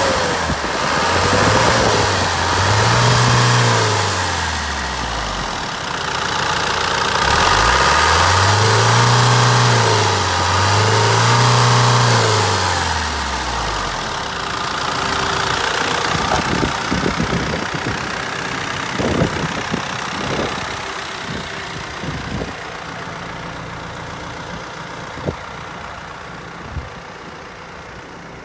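Hino Dutro truck's diesel engine being revved four times, in two pairs, its pitch rising and falling with each rev. It then drops back to a steady idle, which grows quieter, with a few sharp clicks near the end.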